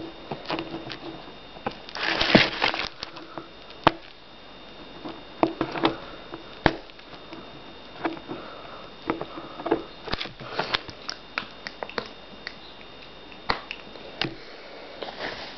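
Plastic peel wrapping being picked at and pulled off a dishwasher-cleaner bottle: irregular crinkling and sharp clicks of plastic, with a louder spell of rustling about two seconds in.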